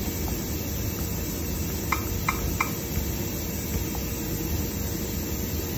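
Steady background hum and hiss of room tone, with three faint light clicks in quick succession about two seconds in.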